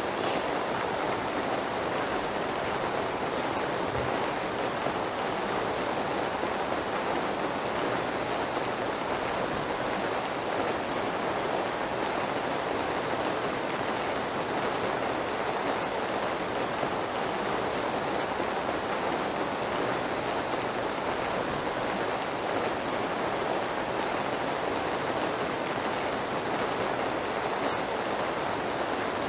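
Steady rain, an even unbroken hiss.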